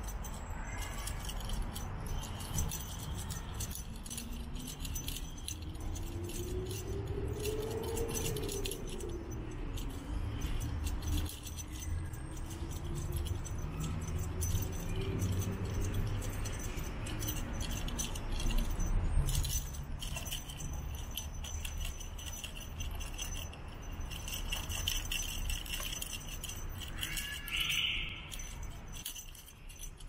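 Light jingling, rattling clicks and rustles as kittens pounce on a feather wand toy in leaf litter, over a steady low rumble. A faint engine note rises and falls in the background between about five and sixteen seconds in, and a brief higher sound comes near the end.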